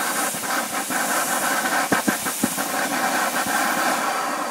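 Homemade jet engine running, a steady rushing hiss of burning fuel with a few sharp crackles about two seconds in; the engine is running red hot.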